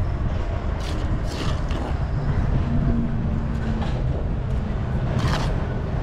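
A steel bricklaying trowel scraping mortar along the face of a course of concrete blocks, several short scrapes, over a steady low rumble.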